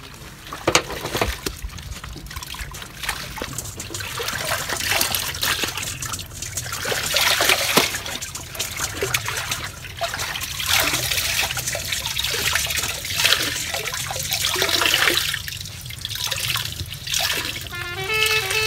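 Water trickling and splashing as laundry is rinsed and wrung out by hand over a flowing irrigation watercourse, swelling and fading irregularly with a few sharp splashes.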